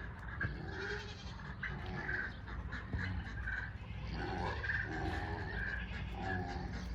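Farm animals calling: a run of short, repeated calls over a steady low rumble.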